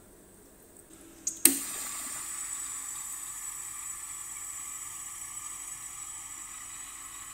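A sharp click about a second and a half in, then a countertop square-cube ice maker running: a steady watery hiss with a thin high whine.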